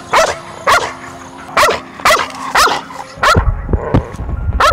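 Belgian Malinois barking repeatedly, about eight sharp barks roughly half a second apart, on the guard command "watch": the alert barking of a protection-trained dog.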